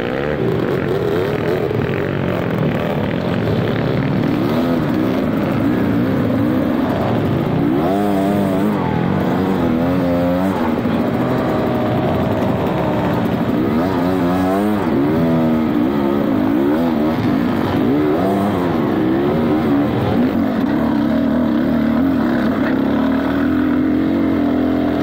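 Dirt bike engines revving, the engine pitch rising and falling again and again as the throttle is worked on and off, at times with two sweeps overlapping.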